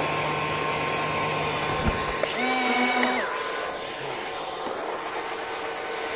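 Small electric fan motors of an RC hovercraft running, a steady whine over a rush of air. A higher motor whine cuts in for about a second midway, and there is a light knock about two seconds in.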